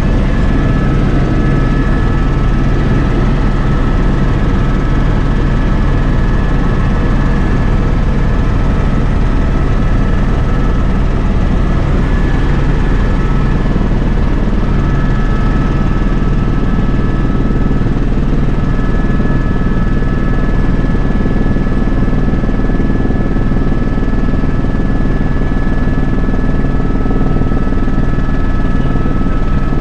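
Helicopter in flight heard from inside the cabin: a loud, steady drone from the rotor and turbine with two constant high whining tones over it.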